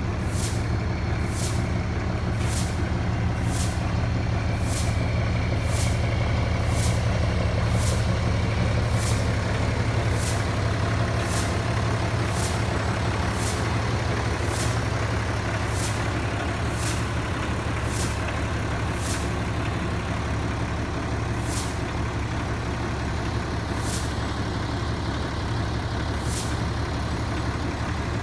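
A fire engine's diesel engine idling, a steady low drone, with a sharp high tick repeating about once or twice a second that slows toward the end.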